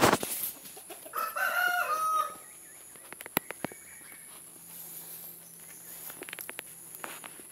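A rooster crows once, about a second in, for just over a second. Scattered clicks and a faint low steady hum follow.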